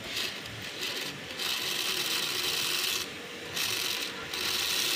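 Old cylinder-arm bag sewing machine (mesin cangklong) stitching through four layers of fabric. It runs in spurts, stopping briefly about three seconds in before stitching on.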